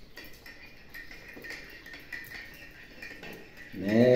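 Light scattered clicking and patter from a dog's claws on a tile floor as she jumps up at a seated man's legs. Near the end, a man's voice hums a long, loud 'hmm' that rises and then holds.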